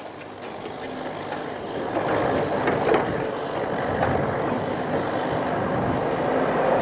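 Class 150/2 Sprinter diesel multiple unit approaching, its engine and wheels on the rails growing steadily louder, with a few sharp clacks as it comes on.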